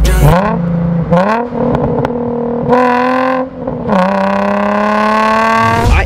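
Nissan 350Z's 3.5-litre V6 accelerating, its engine note rising in pitch as it pulls through the revs. It dips just before 4 s, as at a gear change, then climbs again.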